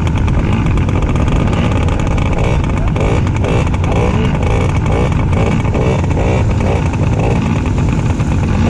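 Dirt bike engines running hard, their pitch rising and falling as they rev up and down.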